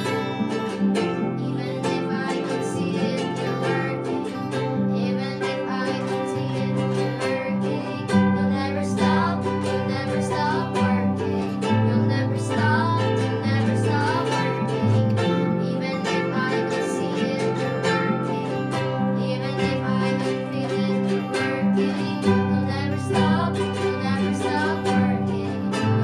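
Background music led by plucked strings, over a moving bass line.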